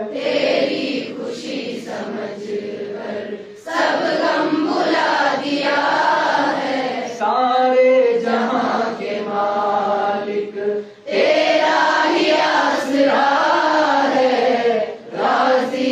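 Voices singing a hamd, an Urdu devotional hymn, in chorus: long sung phrases with short breaths between them, about four seconds and eleven seconds in.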